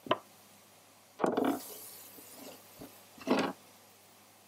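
Kitchen prep handling: a sharp click, then two short rustling knocks about two seconds apart as a bunch of fresh parsley is handled and cut with a knife.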